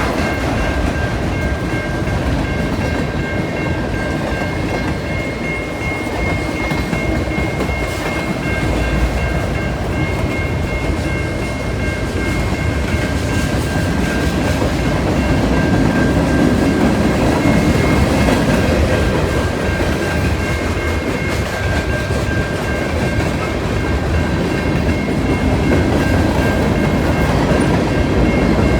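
A CN freight train's cars roll steadily past: a continuous rumble with wheels clattering over the rail joints, and a thin high ringing tone held throughout.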